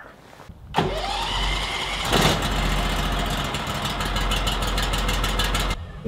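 Gas engine of a Norwood LumberPro portable sawmill starting and revving up, its pitch rising about a second in, then running steadily before cutting off abruptly near the end.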